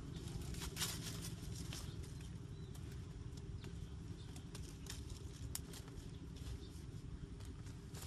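Leaves and twigs of a bush rustling and crackling as its branches are pushed aside and handled, in irregular short bursts over a steady low rumble.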